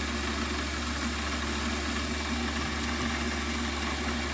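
Warco WM180 bench lathe running steadily, its motor and spindle turning with an even mechanical hum.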